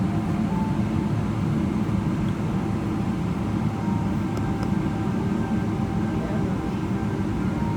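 Steady cabin rumble of a Boeing 777-300ER taxiing, its GE90 engines running at idle, heard from inside the cabin.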